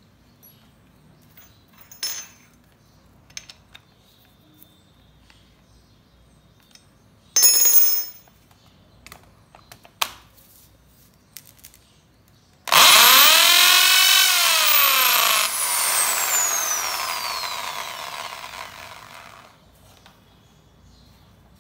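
Bosch GSB 501 500-watt impact drill in non-hammer mode, a black wood twist bit drilling into a wooden board. The motor gives a short blip about 7 seconds in. About 13 seconds in it runs for several seconds, its whine rising and then falling, and fades out as the drill winds down. A few light knocks from handling come before it.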